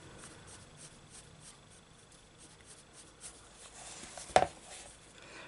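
Faint scratching of a coloured pencil shading on a book page, with one sharp tap about four seconds in.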